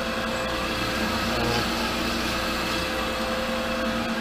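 Startrite H325 metal-cutting band saw running idle, its 1.5 kW three-phase motor and gear drive turning the blade with a steady hum and a few steady tones.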